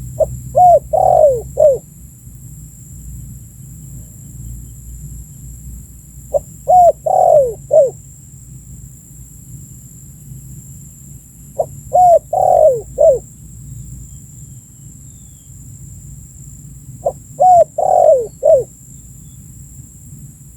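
Spotted dove (tekukur) calling: four phrases about five seconds apart, each a quick run of four or five short coos that fall in pitch.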